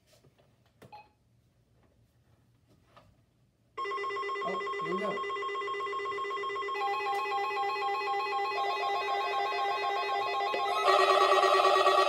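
Weather alert radios sounding electronic alarm tones for the required weekly test. The alarm starts suddenly about four seconds in, a warbling tone joins about three seconds later, and the sound steps up louder near the end as another radio sets off.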